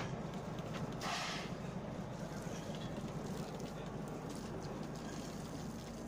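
Fishing boat's engine running with a steady low drone, and a short rush of noise about a second in.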